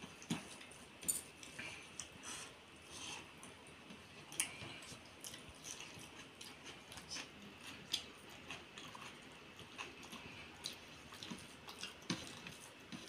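A person chewing mouthfuls of rice and egg curry eaten by hand, with irregular small wet clicks and smacks, and fingers mixing rice in a steel plate.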